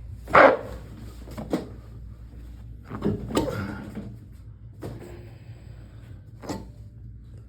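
A handful of short knocks and clunks from a chiropractic table and the patient's body being moved during a Ring Dinger spinal decompression adjustment. The loudest comes about half a second in, with a cluster around three seconds and lighter ones later.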